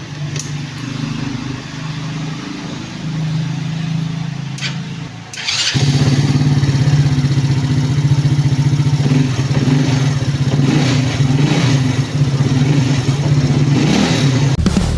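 Marvel 130i motorcycle engine running with a steady low hum and a few light clicks. About five and a half seconds in, it gets much louder and stays that way.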